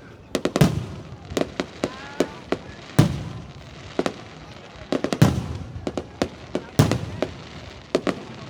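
Aerial fireworks going off in a rapid, irregular string of sharp bangs. Several heavier booms, about three, five and seven seconds in, each trail off in a low rumbling echo.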